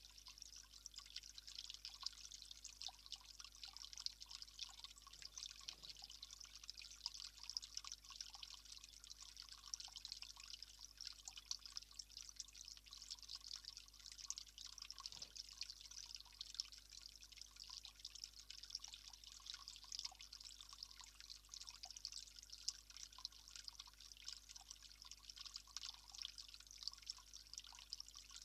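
Faint, steady trickling and dripping of water from a small garden water feature running into a basin.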